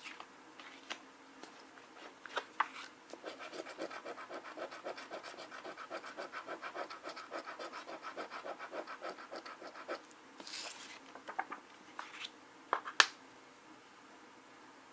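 Scratch-off lottery ticket being scratched in a quick run of short, even strokes, about four or five a second. The run is followed by a brief rubbing hiss and a few sharp taps near the end.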